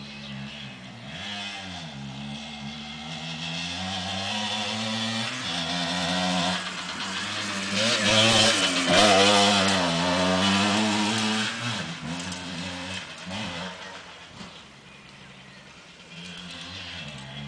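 Honda MTX 80 two-stroke dirt bike engine revving up and down through the corners of a dirt track. It grows loudest as the bike passes close by about eight to eleven seconds in, then fades away into the distance.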